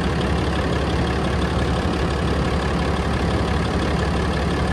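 Ram 5500's 6.7 L Cummins diesel engine idling steadily.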